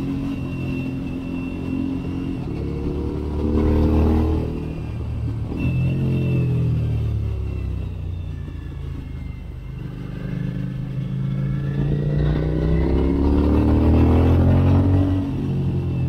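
Suzuki V-Strom 1050XT's V-twin running through a Dominator ST round slip-on exhaust under way: the engine note climbs as the bike accelerates about three to four seconds in, drops back and eases off, then climbs again through the last few seconds.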